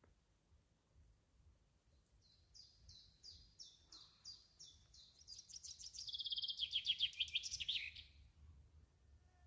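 A songbird sings one song: a string of repeated high notes, about three a second, that speeds up into a fast, louder trill and drops in pitch before it stops.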